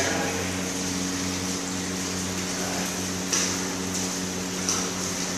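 Steady low machine hum at a constant pitch over a faint hiss, with two short noises in the second half.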